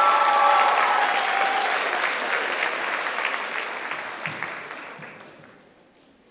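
Audience applauding, loudest at the start and dying away over about five seconds.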